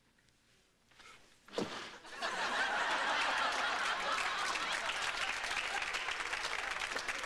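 Sitcom studio audience breaking into loud laughter and applause about two seconds in, just after a single sharp thump.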